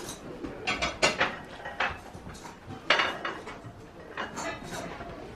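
Hard metal objects clinking and clattering against each other several times, each clink ringing briefly.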